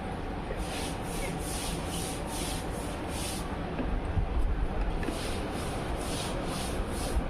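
Rhythmic scratching strokes, about two a second, in two runs of a few seconds each with a short pause between, over a steady low rumble.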